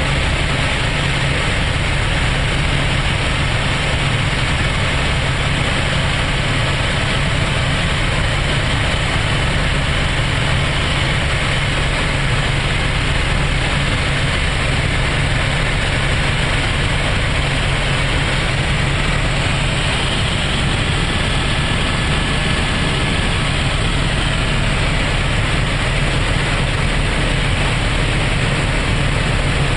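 Helicopter in flight, heard from inside the cabin: the engine and rotor run as a steady low hum under a broad rushing hiss.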